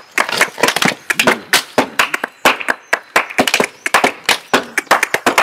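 Rapid, uneven flamenco-style percussion of sharp hand claps and taps, several strikes a second, with no melody.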